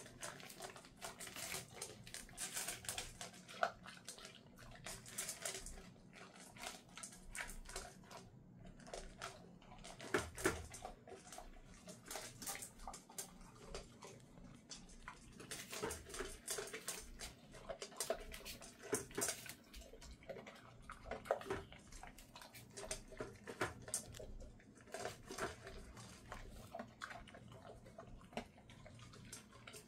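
Dog eating dry kibble from a stainless-steel bowl: irregular crunching and clicking, with many small sharp cracks close together.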